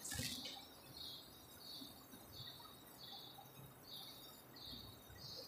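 Faint, evenly repeated short high chirps, about two a second, from the nature film's soundtrack playing on the projector setup.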